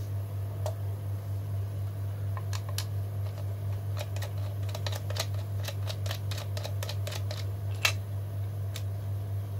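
Small screwdriver turning out the battery-cover screw on the plastic back of a digital clamp meter: light, irregular clicks and ticks, the sharpest about eight seconds in, over a steady low hum.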